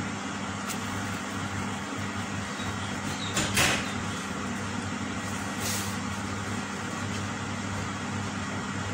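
Steady low hum with a background hiss, and a short scraping swish about three and a half seconds in as a plastic spatula flips an ube hotcake over in a nonstick frying pan; a fainter brief scrape follows a couple of seconds later.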